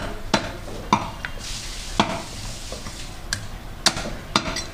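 Cleaver chopping a mutton head on a wooden chopping block: a series of sharp knocks, about eight, at uneven intervals of a third of a second to a second.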